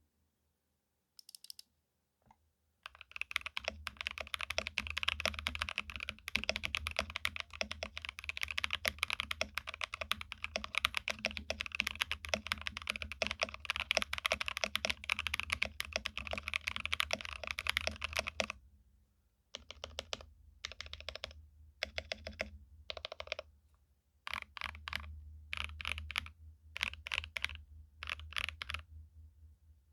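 Typing on a 65% mechanical keyboard with KTT Pine linear switches in a hollow walnut wooden case without case foam: fast, light keystrokes with a muted, marbly clack. A few single key presses come first, then a long stretch of fast continuous typing, then several short bursts of typing separated by pauses.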